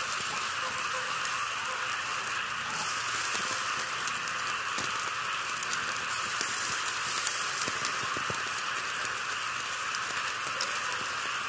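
A steady hiss with scattered faint crackles and ticks.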